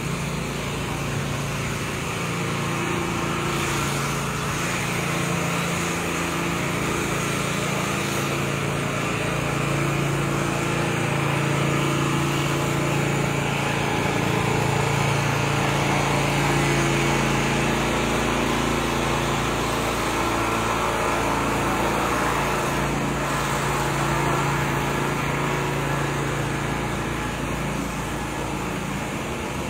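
A motor vehicle's engine running steadily, a low hum that wavers slightly in pitch, over street traffic noise.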